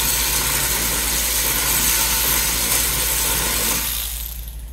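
Power tool running steadily with a hissing whir for about four seconds, chewing into the rounded-off head of a brake mount bolt so an Allen key can grip it; it winds down near the end.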